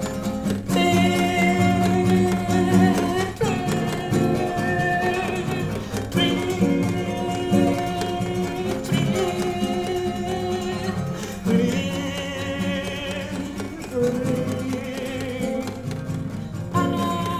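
Nylon-string classical guitar playing an instrumental passage, a new chord struck about every two and a half seconds and left to ring.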